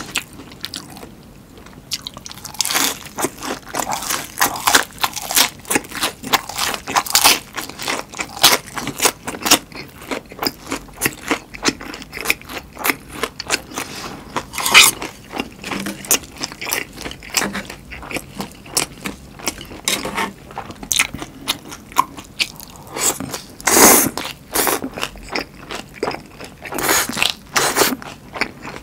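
Close-miked crunching and chewing of a battered, deep-fried Korean chili pepper (gochu-twigim): a rapid run of crisp crackles from the fried batter, with a few louder bites along the way.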